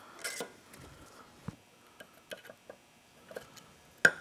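Small, scattered clicks and taps of hand tools and parts as a connecting-rod end cap is worked off the rod of a Polaris RZR 900 XP engine. There is a short rustle just after the start and a sharp click near the end.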